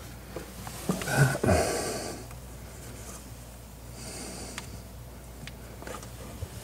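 A man's close-up breathing with a short grunt about a second in and a breathy exhale near four seconds, while he pushes a solvent-glued CPVC fitting together by hand; a few faint clicks of the fittings being handled.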